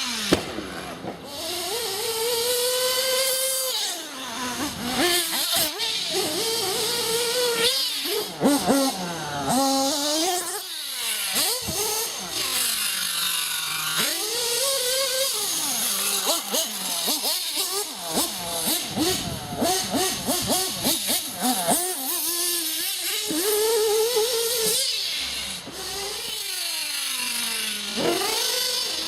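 Losi 8ight-T 2.0 1/8-scale truggy's small nitro engine revving hard, its high buzzing pitch climbing and dropping again and again as the throttle is worked on and off.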